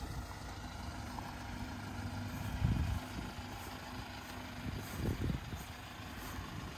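A vehicle engine running with a steady low rumble, and a couple of dull thumps.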